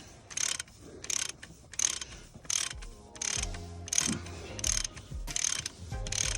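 Hand ratchet wrench clicking through repeated back-and-forth swings, about one burst of clicks every two-thirds of a second.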